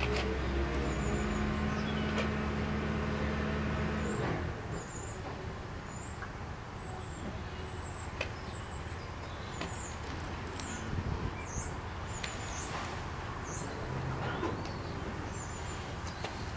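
Outdoor bush ambience with short, high bird chirps repeating every second or so over a steady background hiss. A low steady hum underneath stops suddenly about four seconds in.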